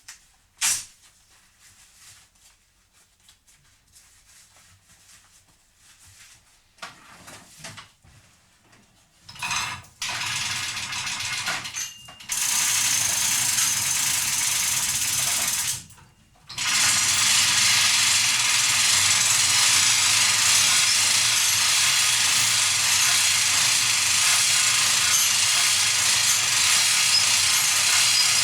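Home-built bicycle rope hoist running with a loud, steady machine noise, starting about a third of the way in, stopping briefly and starting again; before it, scattered knocks and clicks.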